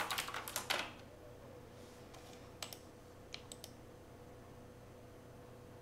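Rapid typing on a computer keyboard for about the first second, then a few single mouse clicks, some in quick succession, over a faint steady hum.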